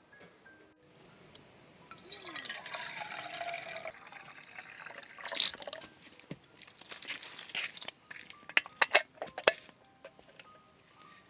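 Liquid pouring for about two seconds, followed by a series of sharp clicks and knocks.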